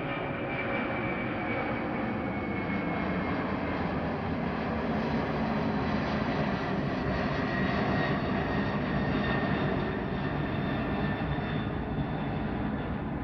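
Jet engines of a McDonnell Douglas widebody trijet airliner making a steady rushing noise, easing slightly near the end.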